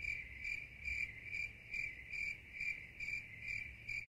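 Crickets chirping: a high chirp repeating steadily about twice a second. It is laid in as a sound effect, with the room's crowd noise cut away before it and back after it.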